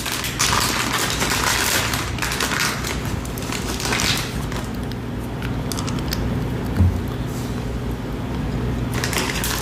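Close-miked crackling and rustling, dense and steady, with a single sharp knock about seven seconds in.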